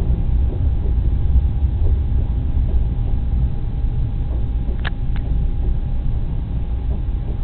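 Freight train's boxcars rolling past: a steady low rumble with a faint steady tone over it, and two short sharp sounds a fraction of a second apart about five seconds in.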